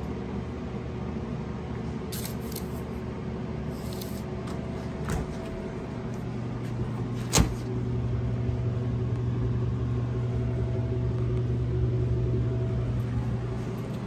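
Commercial refrigeration equipment running with a steady mechanical hum, louder from about halfway through, with one sharp knock about halfway in.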